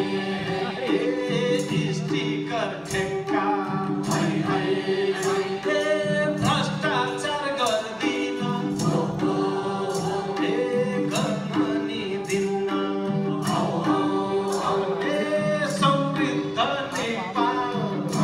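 A group of men and women singing a Nepali Deusi song together, accompanied by a harmonium's held chords, with a steady beat.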